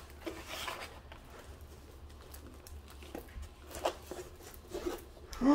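Faint rustling and a few soft clicks as a rolled diamond-painting canvas with its clear plastic cover film is unrolled by hand on a table.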